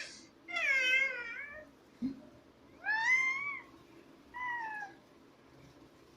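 A baby making meow-like cat sounds: three separate high calls, each under a second, the first and longest bending down in pitch, the last one shorter. A soft knock comes between the first two calls.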